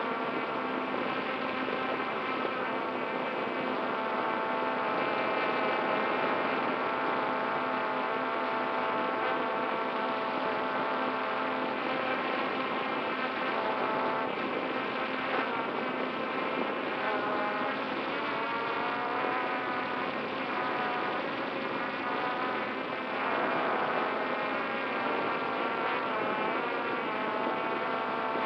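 Small FPV multirotor drone's electric motors and propellers buzzing in flight, heard close from its onboard camera: a many-toned whine that keeps shifting up and down in pitch.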